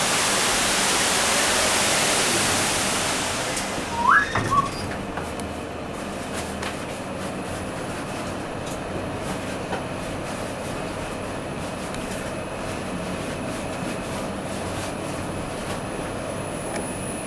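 A passenger lift closing and travelling upward. A loud rushing hiss through the open doors cuts off about three and a half seconds in as the doors shut, a short rising tone follows, and then the car runs with a steady low hum and a faint high whine.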